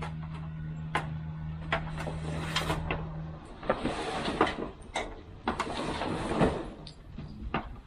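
Work noises: sharp clicks and knocks, with a steady low hum for the first three seconds or so that then stops. In the second half, two spells of scraping, sliding noise.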